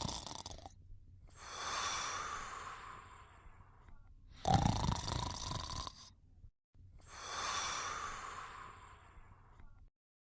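Cartoon snoring: a short, rough snore on the in-breath, then a long, breathy out-breath that fades away, heard twice.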